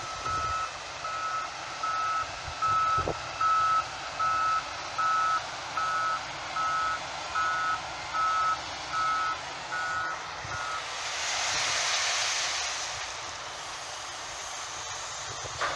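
Heavy vehicle's reversing alarm beeping at an even pace, a little more than one beep a second, then stopping about eleven seconds in. A rushing hiss then swells and fades for about two and a half seconds.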